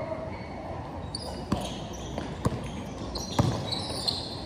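A basketball bouncing on a concrete court: three heavy thuds about a second apart.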